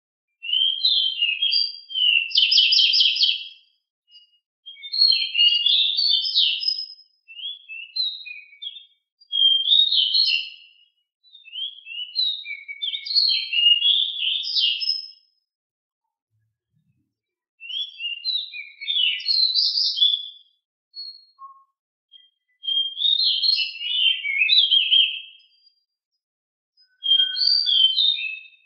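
A songbird singing loud, fast, rolling phrases of high chirps and trills, in about eight bursts of a few seconds each with short pauses between.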